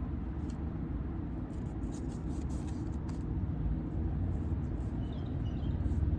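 A steady low rumble runs underneath, with faint light ticks and rustles of baseball cards being handled.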